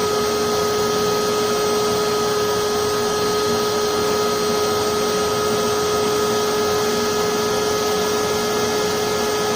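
Forced-air propane forge burner running steadily at about 1 psi with a neutral flame: the electric blower's steady rush of air and gas, with a constant whine over it.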